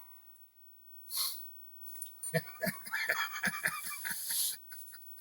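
A breathy exhale about a second in, then about two seconds of quick, irregular small clicks and clinks with a faint metallic ring, like small hard tool parts being handled, ending in another breath.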